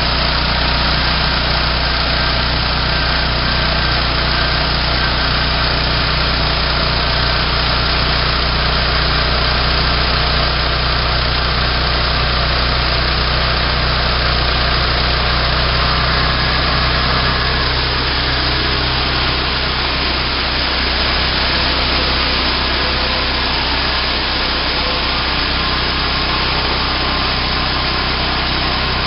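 Small gasoline engine running steadily, driving a homemade bandsaw mill whose blade is cutting through a log.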